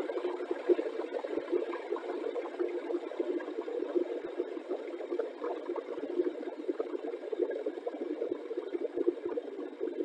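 Electric kettle heating water close to the boil: a steady, dense crackling rumble of bubbles forming and collapsing, with the sound concentrated in a low band.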